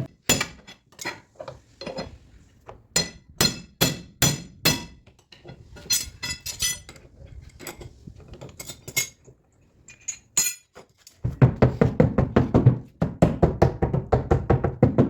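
Sharp metal taps and clinks of body-repair tools on a car panel: scattered single strikes, then from about eleven seconds in a fast, steady run of several taps a second, as when tapping down a dent.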